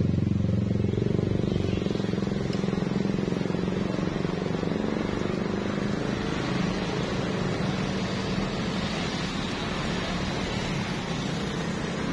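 Steady low engine hum of street traffic.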